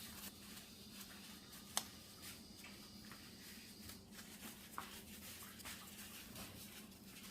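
Faint handling sounds of a carburetor bowl being worked on by hand: light rubbing and scattered small clicks, one sharper click about two seconds in, over a low steady hum.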